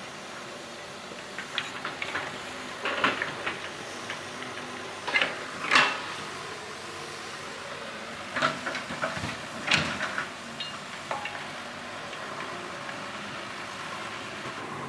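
Scattered knocks and clatter of things being handled, over a steady hiss; the clatter stops after about eleven seconds, leaving only the hiss.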